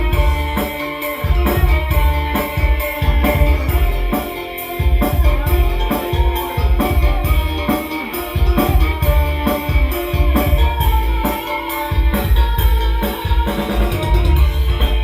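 Loud music with a steady drum beat, heavy bass, guitar and keys, played through a sound system being checked.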